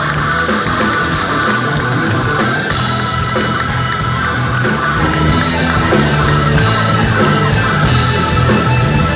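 Blues-rock band playing loud live: a Stratocaster-style electric guitar over drums, bass and keyboard, with cymbals crashing more heavily in the second half.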